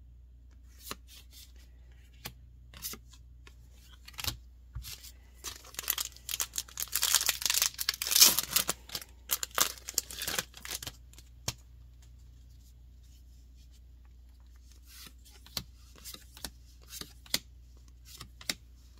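A Magic: The Gathering draft booster pack's foil wrapper being torn open and crinkled, densest and loudest in the middle, with scattered light clicks and taps of cards being handled before and after.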